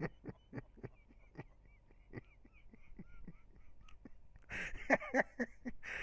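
Soft, irregular clicks and mouth noises from a man biting a cable close to the microphone. About four and a half seconds in, these give way to his wordless vocal sounds.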